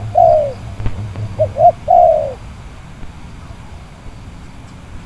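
Spotted dove (tekukur) cooing: a call of two short notes and a longer falling note ends just after the start, and a second full call follows about a second and a half in.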